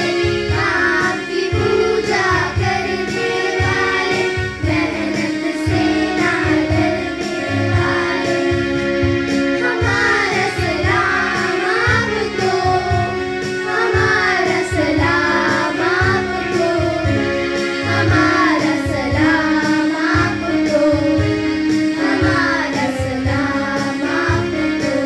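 Children singing a song over music with a steady beat and held instrumental tones.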